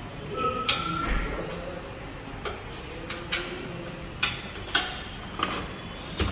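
Sharp metallic clinks and knocks at irregular intervals, about eight in all, over the steady low background of a car service workshop.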